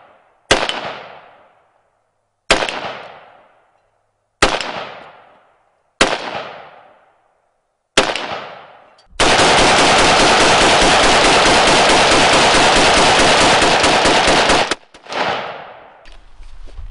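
A 5.45×39 carbine firing Russian military surplus ammunition. First come five single shots about two seconds apart, each trailing off in a long echo. Then about five seconds of rapid fire with the shots running together, one more shot, and light clicks of the rifle being handled near the end.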